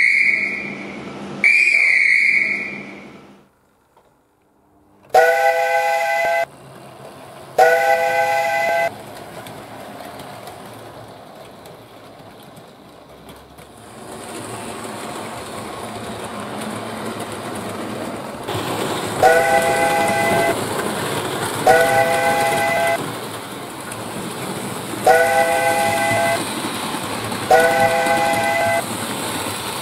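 A high single-note whistle blown twice, then a steam locomotive's multi-note chime whistle gives two blasts. A train's running noise then builds, and the chime whistle sounds four more times, in two pairs.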